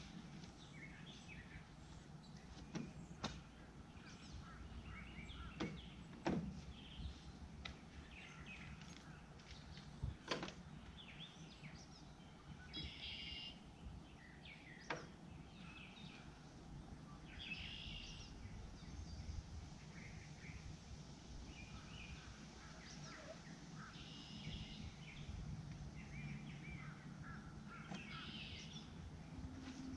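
Quiet outdoor ambience: birds chirping on and off throughout, with a few sharp knocks in the first half.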